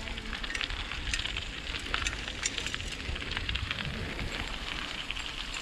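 Bicycle tyres rolling over a rough path, giving a steady crackle of small clicks, with wind rumbling on the microphone.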